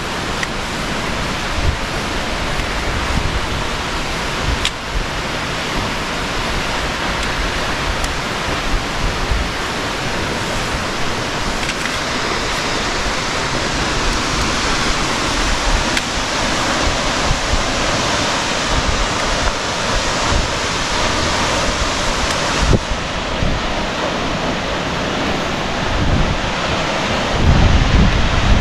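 Steady rush of water from a waterfall, with wind buffeting the microphone in low gusts that are strongest near the end.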